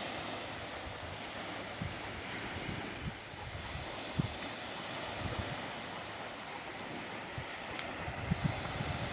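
Sea waves washing steadily onto the shore, with wind buffeting the microphone in scattered low thumps.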